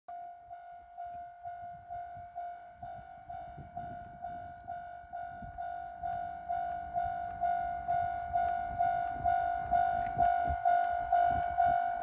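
Japanese railway level-crossing warning bell ringing: an electronic bell tone struck evenly a little over twice a second, growing louder.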